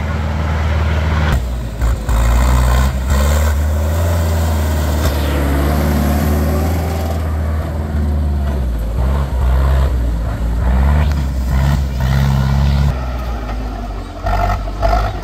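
Zetor tractors' diesel engines running hard as the tractors pull through deep mud, the engine note shifting several times as the throttle and load change.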